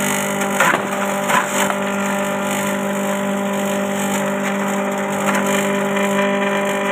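JG125 multifunction chopper driven by a 2 hp electric motor, running with a steady hum. Short crackling bursts about half a second and a second and a half in, as material goes through the cutter.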